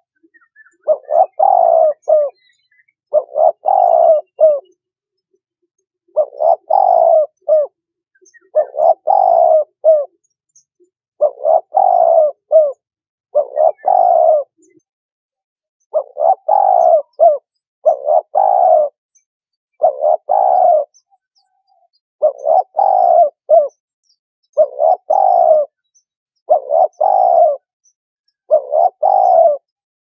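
Turtle dove cooing: the same short phrase of two or three low coos repeated over and over, about one phrase every two seconds.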